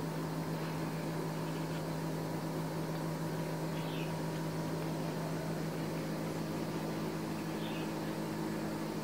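Steady mechanical hum with a constant low pitch, with a few short, faint high chirps about four and eight seconds in.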